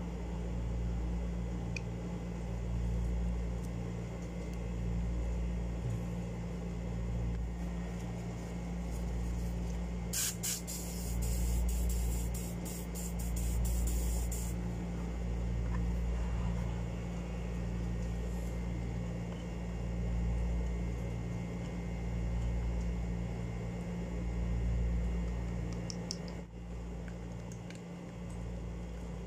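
A spray can hisses in a run of short bursts lasting about four seconds, a little over a third of the way in, as the spinning reel is sprayed over a bucket. A steady low hum runs underneath, with a few light metallic clicks.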